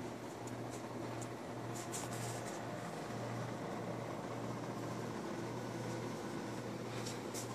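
Steady low hum of room noise, like a fan running, with a few faint light clicks.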